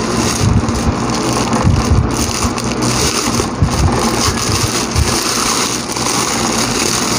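Clear plastic packaging bag crinkling and rustling loudly as it is handled and pulled open, with a few dull knocks mixed in.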